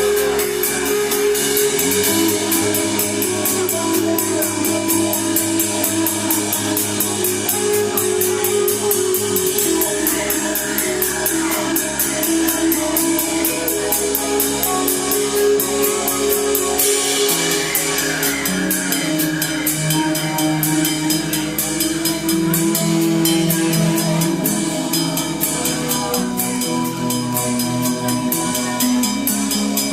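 Live instrumental stoner/psychedelic rock band playing: drum kit with a fast, steady cymbal beat over sustained bass and guitar notes.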